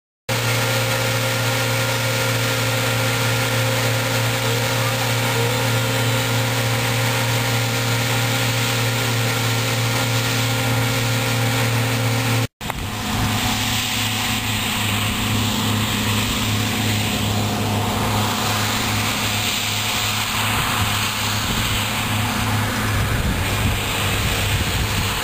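John Deere C670 combine harvester working through a rapeseed crop: engine and threshing machinery running steadily with a constant low hum and several steady whining tones. About halfway through the sound cuts out for an instant and comes back, now with more hiss over the hum.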